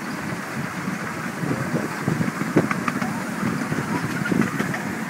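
7¼-inch gauge miniature railway train running along the track: a steady rumble of wheels on rail with several sharp clicks and knocks about two to four and a half seconds in.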